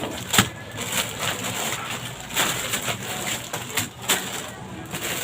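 Rustling and crinkling of cardboard boxes and plastic-packed goods being handled and unpacked, with several sharp knocks as items are set down.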